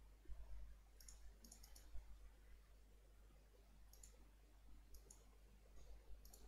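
Faint clicks of a computer mouse button pressing a PDF viewer's next-page arrow: a quick run of clicks about a second in, then scattered single and double clicks.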